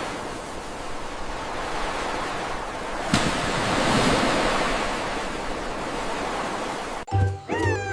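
A steady rushing noise with no pitch. A sharp knock about three seconds in is followed by a swell, and the noise cuts off abruptly near the end.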